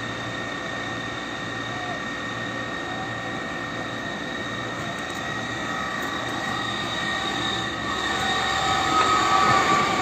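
Forest fire tanker's engine and water pump running steadily, a constant drone with a high whine, growing louder near the end.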